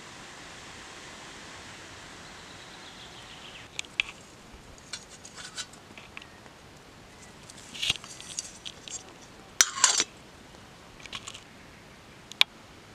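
A steady hiss, then clinks and clattering knocks of metal camp cookware: a metal camping mug set on a small folding stove, with the loudest clatter about ten seconds in and a single sharp click near the end.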